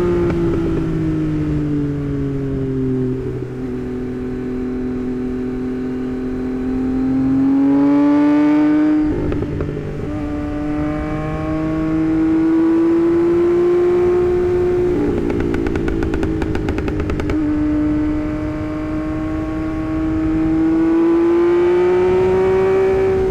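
Tuned 2024 Yamaha MT-09's 890 cc inline-three engine running under way, its pitch falling, holding and rising again several times as the rider rolls the throttle on and off through the gears. About two-thirds of the way through, the engine sound breaks into a rapid, even rattling for a couple of seconds.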